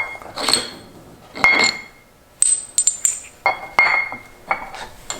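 Small metal brake-caliper parts clinking against each other and the bench as they are handled and set down: a string of sharp, ringing metal clinks at uneven intervals.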